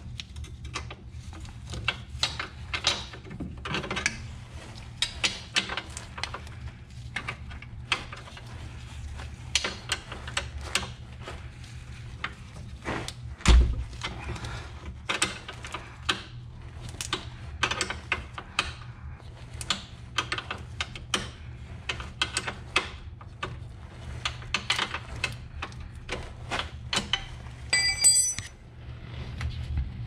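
Irregular clicking and clinking of hand tools working fasteners under a car, with one heavy thud about halfway through and a short ringing metallic tone near the end, over a steady low hum.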